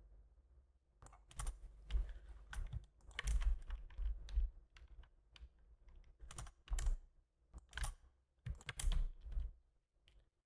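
Computer keyboard keys tapped in irregular bursts with short pauses between, with dull thuds on the desk under some of the strokes.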